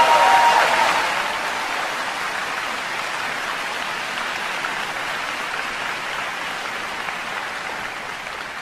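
Audience applauding, loudest at first and then settling into steady clapping that slowly fades. A single held high note sounds over it and ends about a second in.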